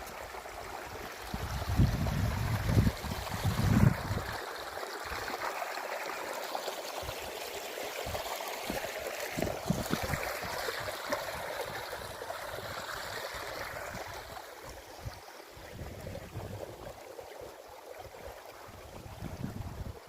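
Mountain stream flowing and splashing between rocks, a steady rushing. Low rumbling bursts about two to four seconds in are the loudest part.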